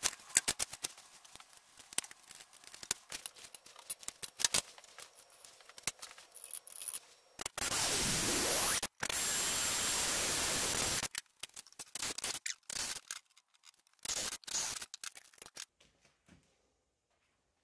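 Scattered clicks and knocks of a tape measure and tools being handled on a steel tube, then a Milwaukee M18 cordless drill boring through the painted steel rectangular tube in two runs of about a second and a half and two seconds, the first dipping in pitch as the bit loads up. A few more knocks follow as the drilled tube is handled.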